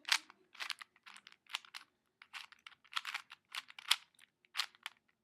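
Plastic Rubik's Cube being twisted quickly to scramble it: its layers turning with irregular clicks and clacks, about three a second.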